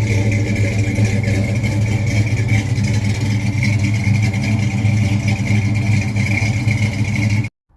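A vehicle engine running steadily and loudly, cut off abruptly near the end.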